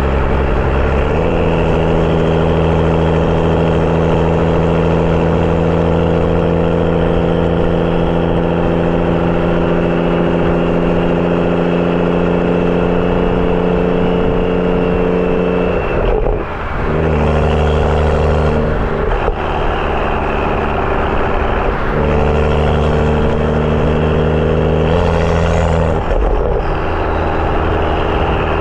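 BMW 335i's N55 turbocharged inline-six, with a catless downpipe and M Performance exhaust, under way: the engine note steps up about a second in and holds, slowly climbing. It drops out briefly about two-thirds through, then changes pitch several more times near the end.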